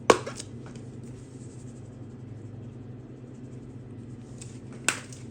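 Sharp clacks of a plastic spice container being handled in a kitchen, the loudest right at the start and another near the end, over a steady low hum.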